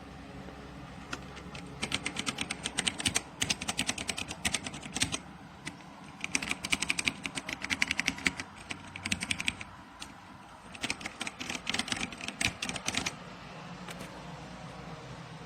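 Rapid typing on a mechanical keyboard with linear red switches (Dierya T68SE 60%), fast runs of key clicks in three bursts with short pauses between.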